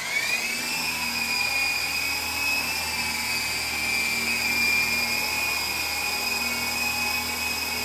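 Small electric motor and rotors of an MJX T-10 RC toy helicopter whining in flight. The whine finishes rising in pitch in the first half-second as the rotors spin up, then holds a steady high pitch.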